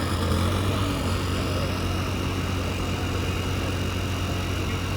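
Heavy vehicle engine idling steadily, a constant low hum with no change in pitch or level.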